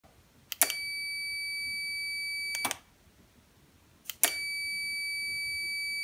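Twice, a sharp relay click is followed by a steady, high-pitched multimeter continuity beep lasting about two seconds, which stops with another click. Each beep means the high-current relay's contacts have closed when switched on by the remote, and the click that ends it is the relay opening.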